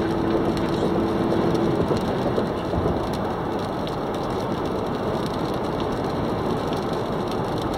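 Steady rushing noise inside a car's cabin while driving on a rain-wet highway: rain on the car and tyres on the wet road.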